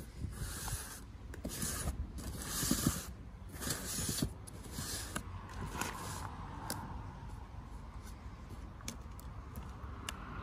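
Utility knife slicing through packing tape on a cardboard box: about five short scraping cuts in the first half, then light clicks and taps.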